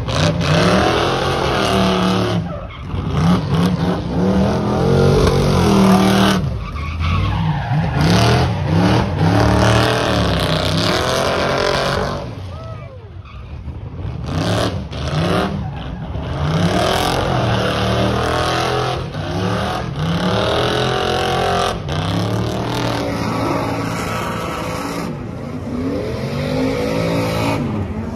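Vehicle engines revving hard, their pitch rising and falling again and again over a steady rushing noise.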